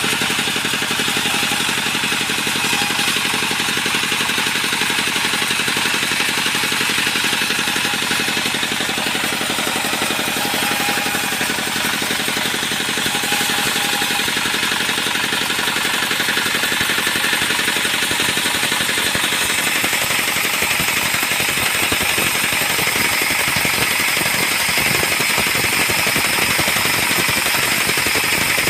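Single-cylinder stationary diesel engine running steadily with a rapid, even chugging. From about twenty seconds in, a higher hiss grows louder over it.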